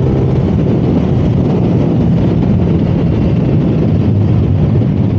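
Honda Click 125i scooter's single-cylinder engine running steadily at cruising speed, with wind rushing over the microphone.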